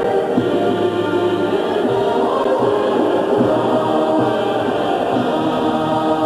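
A stadium crowd of German football supporters singing a chant together, many voices in unison.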